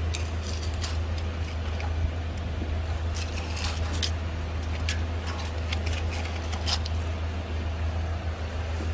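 Engine of a sky lift truck running steadily, a low hum, with scattered short clicks and scrapes over it.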